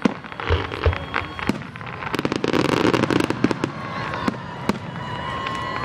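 Fireworks going off: a run of sharp bangs and pops, thickening into a dense crackling burst about two seconds in.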